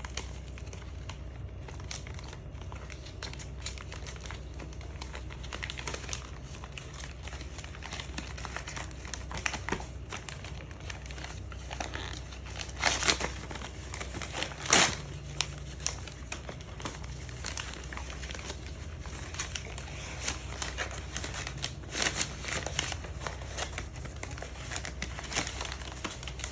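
A gift being unwrapped by hand: wrapping paper crinkling, crumpling and tearing in irregular rustles, with the loudest rips about halfway through.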